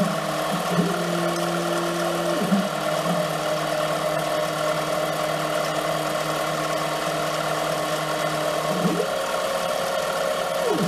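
Harbor Freight 7x10 mini-lathe with a CNC conversion running while cutting an M6x1 thread: the spindle drive hums steadily, and twice a stepper-motor whine rises in pitch, holds, then falls as the carriage moves, the second time higher in pitch.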